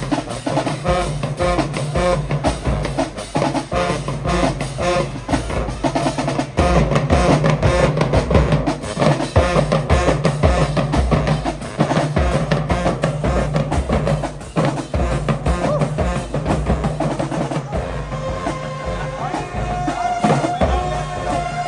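High school marching band playing, with drums driving a dense, steady beat and held instrumental notes coming forward near the end.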